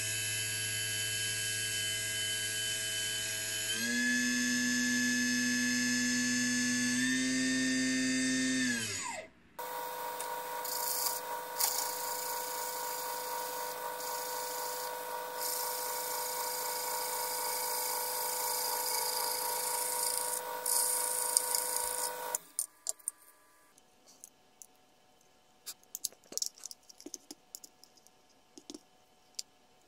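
The Proxxon MF70 mini mill's replacement spindle motor runs with a steady whine, steps up in speed twice, then spins down to a stop. A drill press then runs for about thirteen seconds, followed by faint clicks and taps of small parts being handled.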